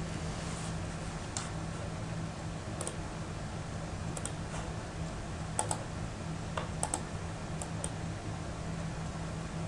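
Scattered clicks of a computer mouse, a few in quick pairs, over a steady low electrical hum.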